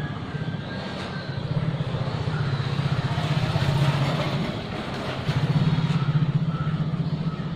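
An engine running with a rapid low pulse, swelling in loudness twice.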